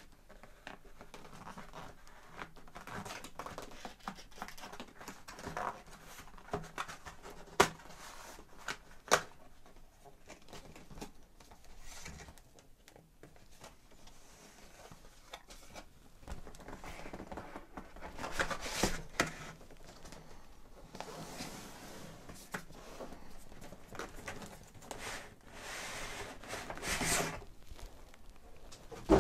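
Hands opening a motherboard's cardboard retail box: rustling, scraping and crinkling of cardboard and packaging, broken by a few sharp clicks and taps. The rustling grows louder in longer stretches in the second half.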